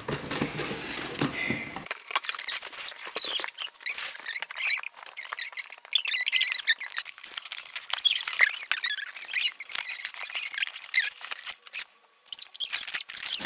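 Cardboard rustling and cutting at first. Then, about two seconds in, the low end drops out and the rest is high, squeaky, chirping chatter with rapid clicks and rustles: sped-up audio of voices and box-cutting.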